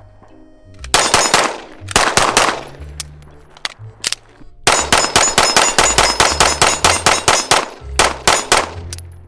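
9mm Stealth Arms Platypus double-stack 1911 pistol firing: a few shots in the first couple of seconds, then a fast string of about a dozen shots at four to five a second, and a few more near the end, each shot ringing out briefly.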